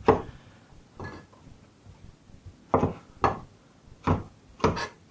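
Large kitchen knife chopping a courgette on a wooden chopping board: about seven knocks of the blade on the wood, two near the start, then a pause, then five in quicker succession.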